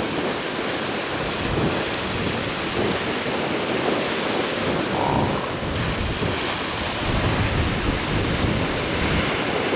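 Rough sea rushing and breaking around a boat, with strong wind buffeting the microphone in a steady roar of noise.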